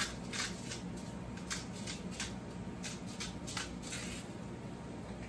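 Soft, irregular scratching and clicking of cooking at the stove, a dozen or so short scrapes and taps of utensils or a spice container, over a steady low hum from the air conditioner.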